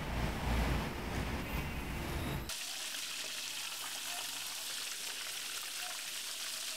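Whole fish frying in a wok of hot, bubbling oil. A loud, rumbling noise for about the first two and a half seconds changes abruptly to a steady, high-pitched sizzle.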